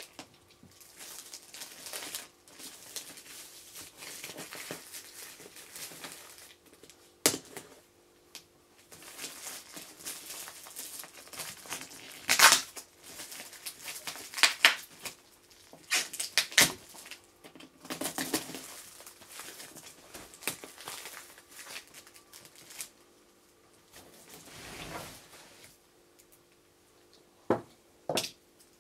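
Clear plastic film and packing tape being picked at and torn off a cardboard box: stretches of scratchy rustling and crinkling, broken by a few sharp clicks.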